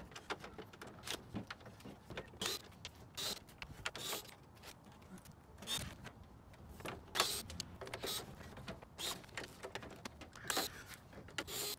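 Cordless driver whirring in many short bursts as it backs out the small screws holding the chrome bezel to the plastic grille.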